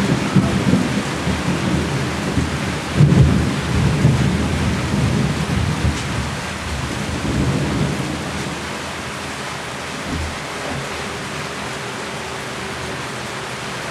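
Heavy rain falling, with low rolling thunder that swells about three seconds in and dies away over the second half, leaving a steady rain hiss.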